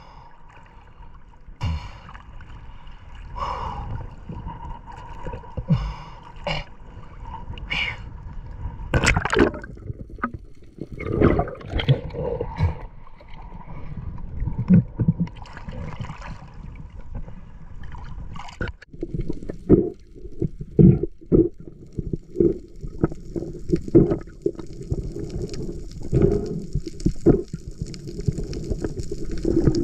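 Sea water sloshing and gurgling, with many scattered knocks and clicks; a steady high hiss comes in about three-quarters of the way through.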